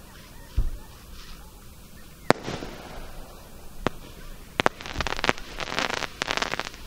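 Aerial fireworks: a low boom about half a second in, then single sharp cracks around two and four seconds, and a quick run of crackling bangs from about five seconds to near the end.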